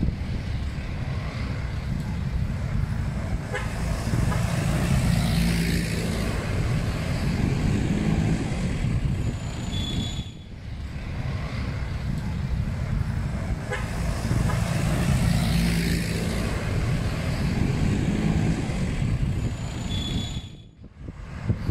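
Road traffic noise: motor vehicles running and passing, with a short high beep twice. The same stretch of traffic sound repeats about every ten seconds.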